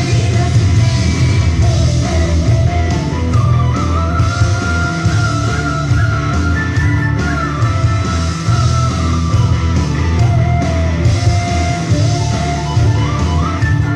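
Loud rock-style instrumental music, a melody line held and sliding over a heavy, pulsing bass beat.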